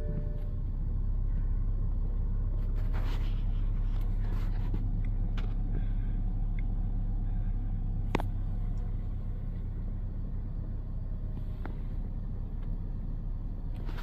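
Toyota GR Supra engine idling steadily in park, heard from inside the cabin, with a few light clicks and one sharper click about eight seconds in.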